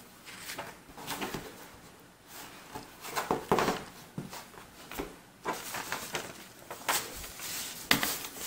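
Handling of old paper documents on a tabletop: a small hardcover booklet is closed and put aside, and papers rustle and slide, with a few sharper taps.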